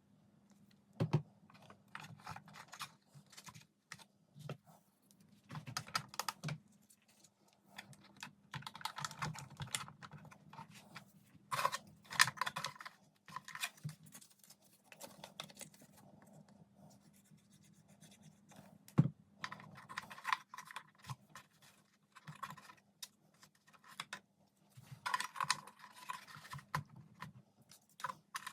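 Irregular light clicks, taps and scrapes of small wooden model-boat parts and clips being handled and fitted on a workbench, with one sharper knock about two-thirds of the way through. A faint steady hum runs underneath.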